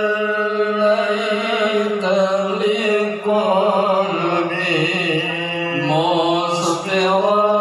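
A solo voice chanting a slow melody in long, drawn-out held notes, a devotional chant in the manner of an Islamic sholawat.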